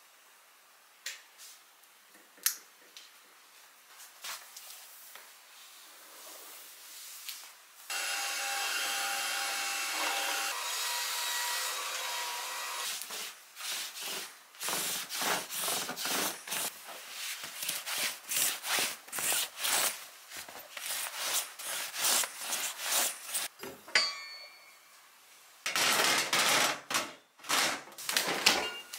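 Brisk rubbing strokes over a mattress, about two a second, as its surface is wiped clear of dust. Before the strokes comes a steady hiss of several seconds, and near the end a short rush of noise.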